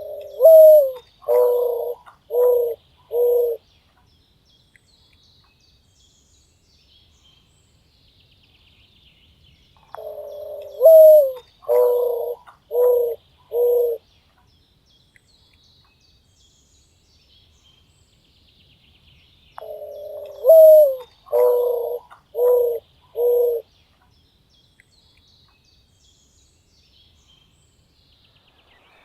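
Eared dove cooing: three phrases about ten seconds apart, each a drawn-out low note that slides up, followed by four short, evenly spaced coos.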